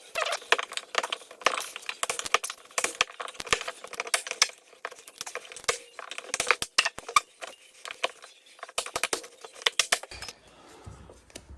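Hands working loose material: fast, irregular crunching, crackling and scraping. It stops about ten seconds in, leaving a faint low hum.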